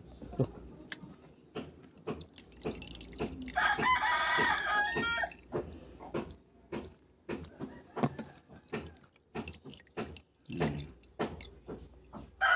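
A rooster crows once, about four seconds in, for a second and a half. Around it come short wet splashes and drips as hands lift and squeeze tiny fish in a basin of water.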